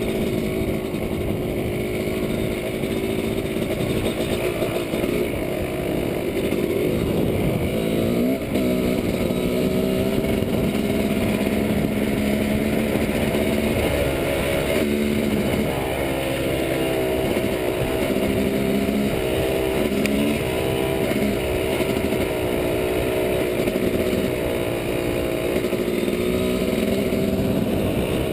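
Dirt bike engine running under load on a rocky trail, its pitch dropping and climbing again several times as the throttle is backed off and reopened.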